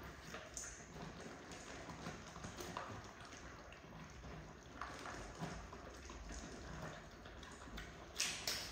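French bulldog puppies eating dry kibble from a stainless steel bowl: a busy run of small crunches, smacks and clicks of kibble against the metal, with a couple of louder clicks near the end.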